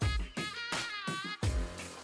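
Instrumental background music with a steady drum beat and a melodic synth line.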